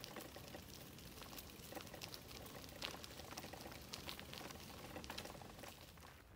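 Faint footsteps crunching irregularly on a dry earth woodland path over a steady crackling hiss, fading near the end.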